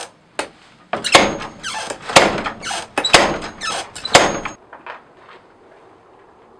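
Treadle hammer striking a red-hot knife blade, forged from an old file, on the anvil. It lands four heavy blows about a second apart, each ringing briefly, and stops about four and a half seconds in.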